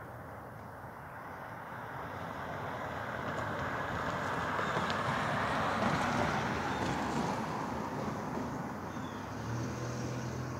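Rushing noise of a passing vehicle, swelling slowly to its loudest about six seconds in and then fading. A low steady hum comes in near the end.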